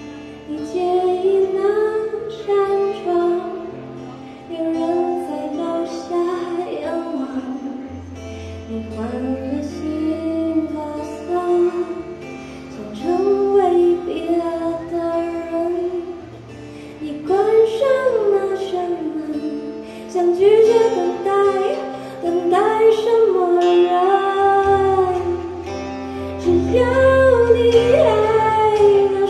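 A woman singing a slow song into a microphone, accompanied by a strummed and picked acoustic guitar.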